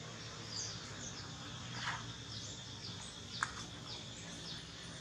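Outdoor ambience: small birds giving short, high, falling chirps again and again over a steady insect drone and a low hum. A couple of short sharp clicks stand out, the loudest about three and a half seconds in.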